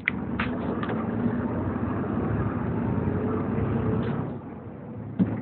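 Volvo B7TL double-decker bus's six-cylinder diesel engine, heard from the passenger saloon, comes up suddenly under load as the bus gets moving, then eases off about four seconds in. A few sharp rattles from the bodywork come near the start, and a knock comes near the end.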